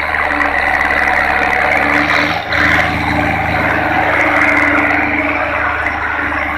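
Belarus 510 tractor's diesel engine running steadily under heavy load as it pulls a cultivator through ploughed soil, with a brief dip about two and a half seconds in.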